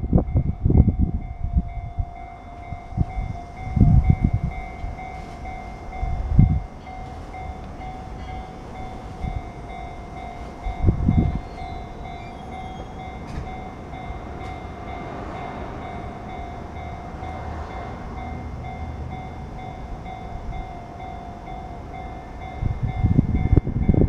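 Japanese railway level crossing alarm ringing continuously, a rapid repeating ding, on the Hanshin Electric Railway. Short low rumbles of wind on the microphone come and go over it.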